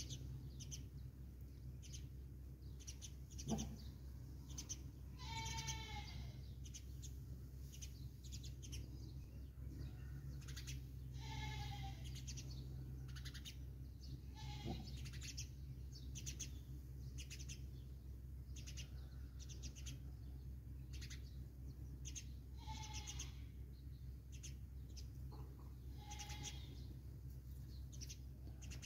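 A few short, high animal cries, each under a second and spaced several seconds apart, over faint chirping of small birds.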